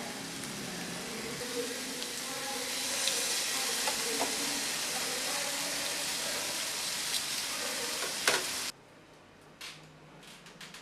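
Thin pork slices sizzling steadily in a nonstick frying pan, with a few sharp clicks of a utensil turning them. The sizzle cuts off suddenly about nine seconds in, leaving only faint handling clicks.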